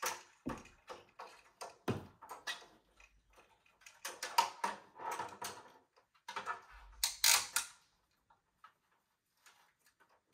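Metal hooks, clips and hanging cables clicking and rattling against a wire grid wall as rope-and-pulley panel hangers are attached by hand. A series of irregular clicks and rattles, with the loudest clusters about four and seven seconds in.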